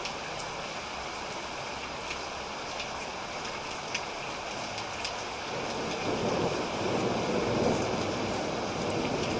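Steady rain falling, with a few sharp drop ticks, the loudest about five seconds in. From about six seconds in, a low rumble of thunder builds under the rain.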